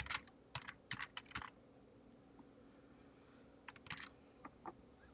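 Typing on a computer keyboard: two quick runs of keystrokes, one in the first second and a half and another around four seconds in.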